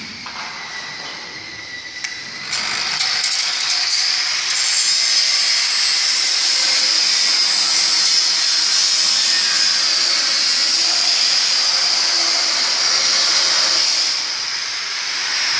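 Angle grinder running with a steady high whine, then biting into steel about two and a half seconds in and grinding loudly with a crackling rush, easing off briefly near the end.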